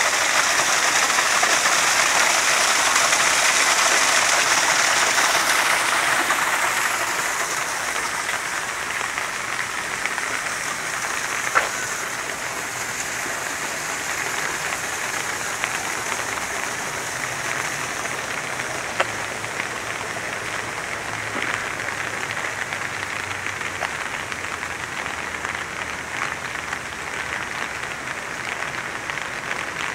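Steady rain falling and pattering on surfaces, louder for the first six seconds or so and then settling to an even hiss, with a couple of sharp single drip clicks.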